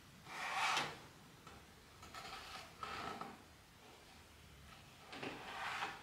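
Four short scraping rubs against wood with pauses between them, the first, about half a second in, the loudest.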